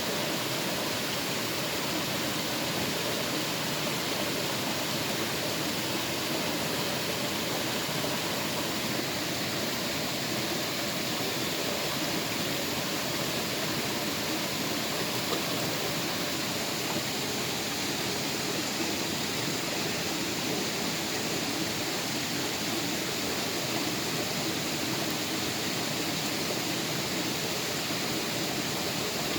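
Steady rushing of flowing water, an even noise that does not change.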